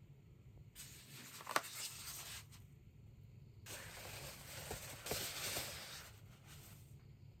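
Keyboard packaging being handled: two stretches of rustling and scraping, the first about two seconds long with a sharp click in the middle, the second about three seconds long.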